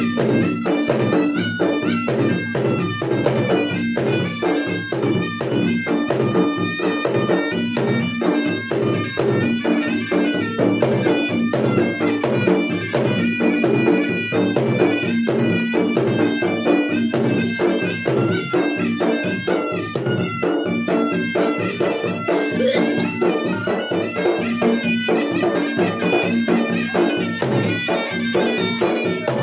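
Traditional Makassar gendang (ganrang) drum ensemble music: rapid, continuous drumming with a shrill reed wind melody, likely a pui-pui shawm, playing over it.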